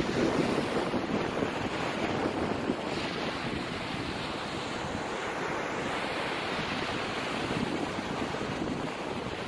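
Steady wind rushing and buffeting over a phone's microphone, mixed with the wash of surf.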